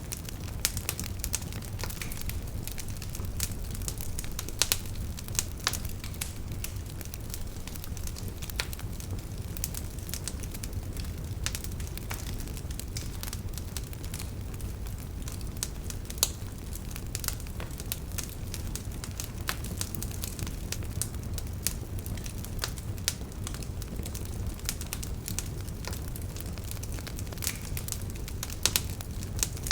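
Campfire burning: a steady low rumble of flames with frequent, irregular sharp crackles and pops.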